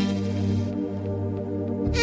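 Music: sustained electronic keyboard chords, held steadily as a song's opening.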